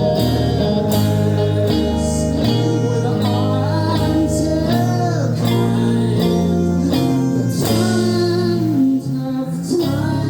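A song played live: guitar over held low bass notes, with a high singing voice gliding between notes in the middle, and a brief drop in loudness near the end.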